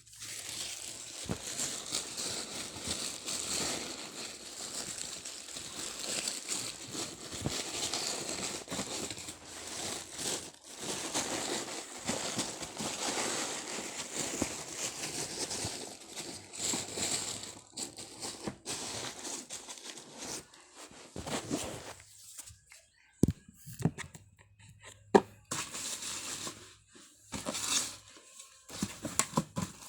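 Packaging in a shoe box rustling and crinkling steadily as it is handled, then quieter with a few sharp knocks and clicks in the last several seconds.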